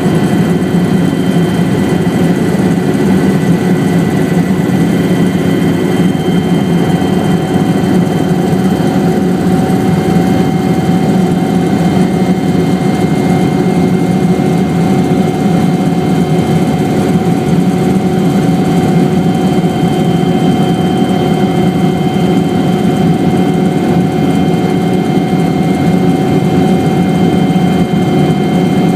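Helicopter in flight: a loud, steady drone of engine and rotor, with a few steady high tones running through it.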